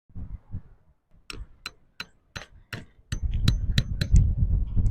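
A run of sharp, evenly spaced clicks or taps, about three a second, with a low rumble joining about three seconds in.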